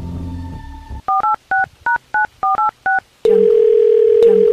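Telephone keypad dialling: about ten quick touch-tone beeps, each a two-note chord, as a number is keyed in. Then a single steady low line tone comes on and holds for about two seconds as the call goes through.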